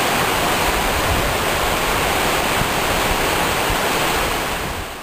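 Water rushing and tumbling over the rock ledges of a cascading waterfall: a loud, steady wash that eases a little near the end.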